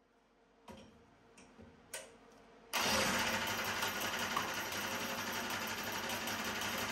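A few light clicks, then about three seconds in a 224 cc single-cylinder four-stroke kart engine on a dyno comes in suddenly and runs steadily, firing fast and evenly.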